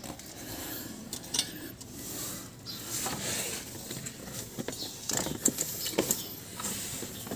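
Scattered light clicks, knocks and scraping of hands and metal parts being worked in a van's engine bay as the worn alternator belt is pulled off its pulleys, with more clicks about five to six seconds in.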